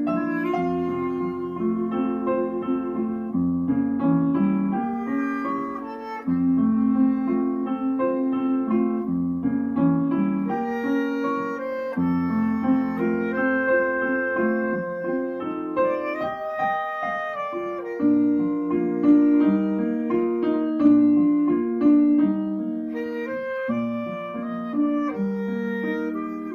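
Clarinet playing a melody over piano accompaniment, with short breaks between phrases.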